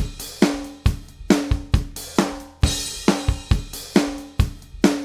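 Intro music built on a steady drum-kit beat, kick and snare with cymbals, a little over two hits a second, each hit ringing out briefly over a low held note.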